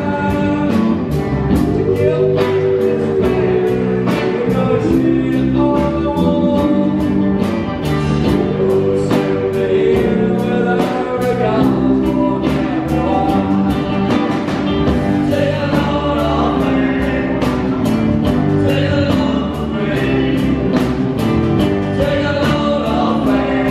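Live rock band playing: a man singing into a microphone over amplified electric guitars and a drum kit keeping a steady beat.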